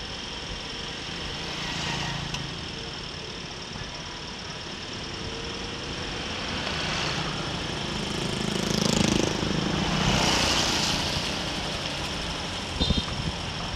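Steady engine and road noise from a vehicle on the move, with wind on the microphone. About two thirds through, a louder swell comes as an oncoming motorbike passes, and a few short low thumps follow near the end.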